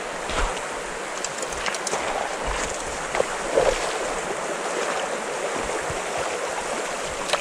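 Shallow, stony river running past at the bank: a steady rushing of water over stones, with a few faint clicks.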